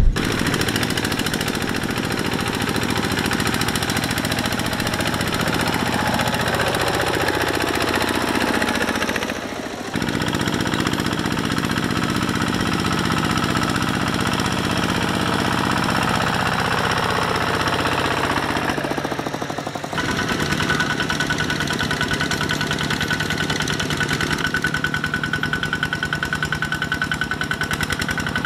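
Single-cylinder diesel engines of two-wheel walking tractors running with a fast, steady knock while pulling loaded rice trailers through mud. The sound changes abruptly twice, and before the first change the pitch falls.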